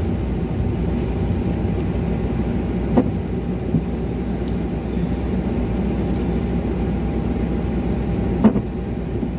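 Car driving slowly on wet streets, heard from inside the cabin: a steady low engine and tyre hum, with two short knocks, one about three seconds in and one near the end.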